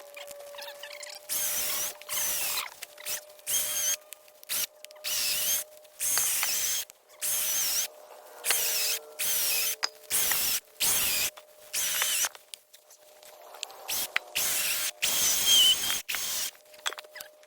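Power saw cutting wood in many short, stop-start bursts, each with a high, wavering squeal; the loudest bursts come near the end.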